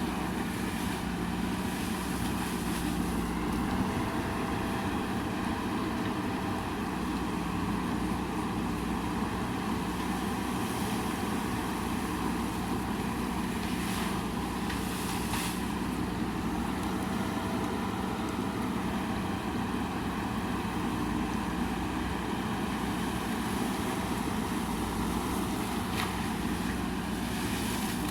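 JCB backhoe loader's diesel engine running steadily under work, with a few brief sharp clanks partway through.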